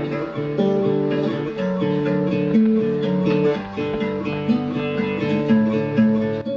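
Background music of acoustic guitar strumming chords.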